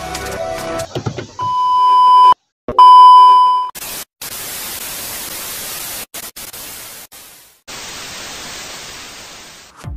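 Old-television sound effect: a steady high test-tone beep, sounded twice, then hissing TV static noise that cuts out briefly a few times.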